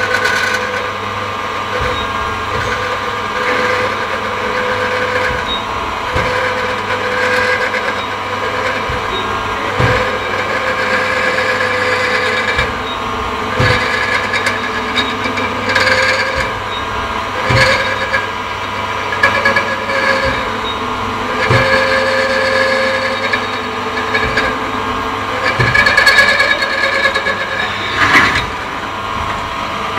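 Machinery running steadily with a continuous hum and held tones, pitched sounds coming and going every second or two, and irregular sharp knocks and clanks.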